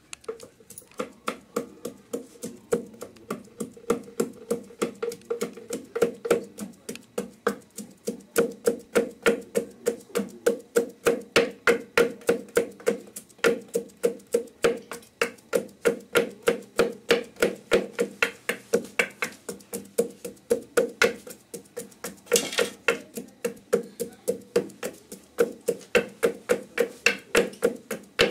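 Pestle pounding steadily in a metal mortar, about three strikes a second, each blow ringing with a clear metallic tone, while crushing nutmeg. There are brief pauses about halfway through and again near the end.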